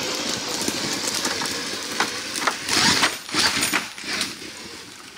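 A 100-lb electric Primal RC Mega trail truck with a sensored Castle motor crawling over dry sticks and forest litter: the drivetrain whirs while twigs crackle and snap under its big tyres, loudest about three seconds in.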